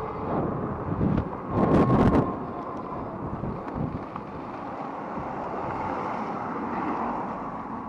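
Wind buffeting the microphone while the e-bike is ridden, with a steady rush of riding noise underneath. A louder gust comes about a second and a half in.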